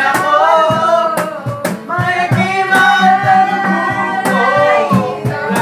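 Singing to a strummed acoustic guitar, with a steady strum under the sung melody.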